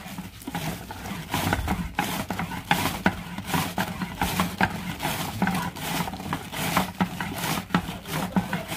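Cabbage being shredded on a kraut cutter: a box holding a cabbage head is slid back and forth over a slanted steel blade, each stroke a crunchy slicing scrape, about two strokes a second.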